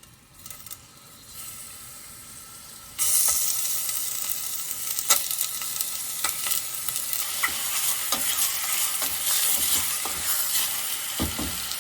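Chopped chicken thigh pieces going into hot olive oil in a cooking pot and sizzling: the loud sizzle starts suddenly about three seconds in and keeps going, with clicks of a utensil stirring the pieces as they brown.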